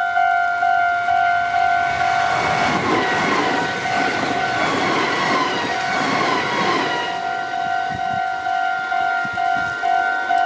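Japanese level-crossing alarm ringing in quick, steady two-tone dings while a Meitetsu Nagoya Main Line electric train passes. The train's rumble builds about two seconds in and fades after about eight seconds, with a whine that glides down in pitch as it goes by.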